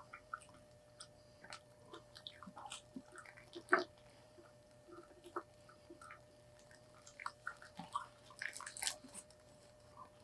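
Faint close-up eating sounds: people chewing burgers and fries, with irregular soft mouth clicks and smacks, one sharper click about four seconds in and a run of them near the end.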